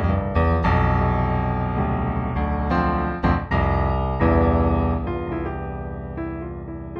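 Solo improvised piano music: chords struck every half second or so and left ringing, then a chord about four seconds in that fades slowly.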